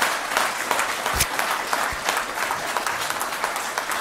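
Audience applauding, a dense steady patter of many hands clapping, with a single knock about a second in.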